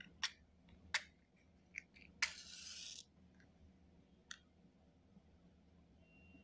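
A few light clicks of a matchbox being handled, then a match struck about two seconds in, flaring with a short hiss of under a second; one more light click follows.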